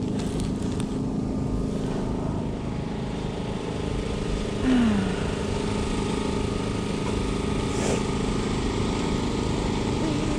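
A steady engine hum over low rumble, with a short falling squeak about halfway through.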